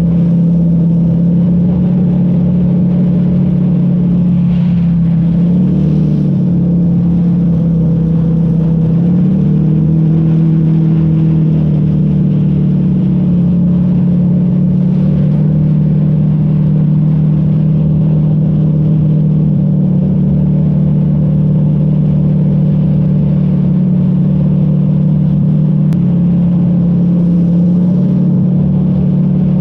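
A flat-bottomed boat's engine running steadily at speed, its pitch dipping and rising slightly a few times as the throttle changes.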